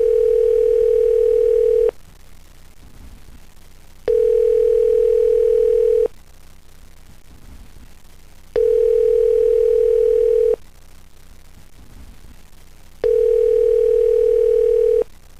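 Telephone ringback tone on the line: four long, steady beeps of about two seconds each, separated by gaps of about two seconds.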